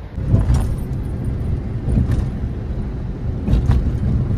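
Inside the cabin of a Suzuki car on the road: a steady low rumble of engine and road noise, with a few short knocks.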